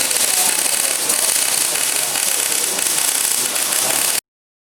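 MIG welder arc crackling steadily as a weld is laid, cutting off suddenly about four seconds in.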